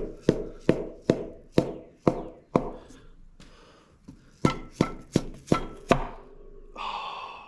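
Hammer tapping a piston down into its cylinder on a Ford 8N engine: a quick run of about seven sharp knocks, a pause, then five more. A brief rustling noise follows near the end.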